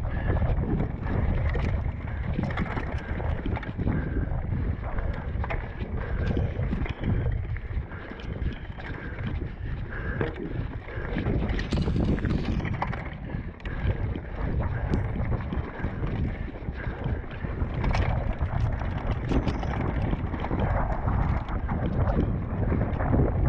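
Wind buffeting a moving GoPro's microphone in a steady low rumble, with scattered clicks and rattles throughout.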